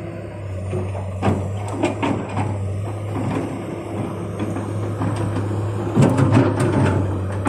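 Komatsu PC200 excavator's diesel engine running steadily under a low hum, with metal clanks and knocks from the working machine, loudest in a quick cluster about six seconds in.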